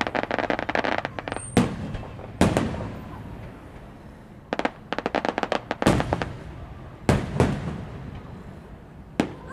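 Aerial firework shells bursting: about five single sharp booms a second or more apart, with two runs of rapid crackling pops, one at the start and one about halfway through.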